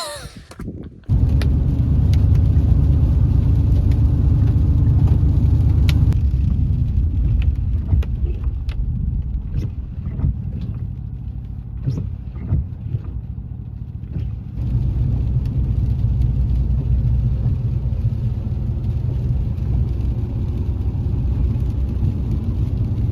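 Steady low road rumble of a car driving, heard from inside, with a few faint ticks. It starts abruptly about a second in and dips briefly around two-thirds of the way through.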